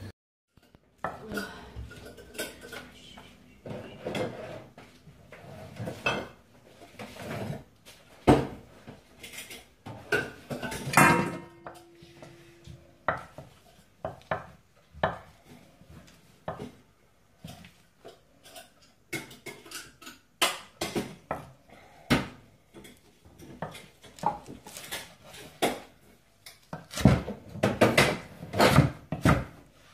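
A kitchen knife chopping iceberg lettuce on a round wooden chopping board: irregular knocks of the blade on the wood, with a quick run of chops near the end.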